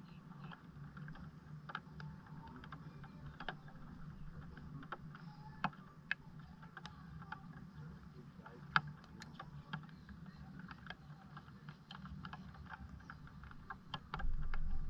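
Light, irregular clicks and taps scattered over a steady low hum, with the background getting louder near the end.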